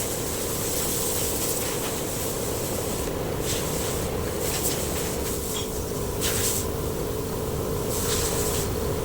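Power sander running against a car fender panel, a steady motor hum under a rubbing, rasping noise, with a few brief louder scrapes.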